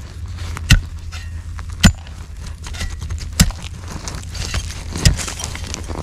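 A digging tool striking into dirt and buried rubbish, four sharp hits roughly every one and a half seconds, over a steady low rumble.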